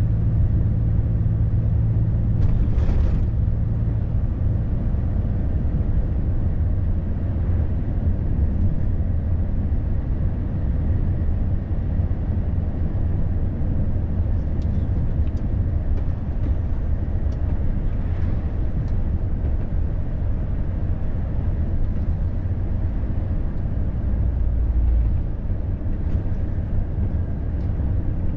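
Steady drone inside a moving Volvo FH truck cab: diesel engine hum with tyre and road noise. The engine note eases about three seconds in, and a few faint clicks come through in the middle.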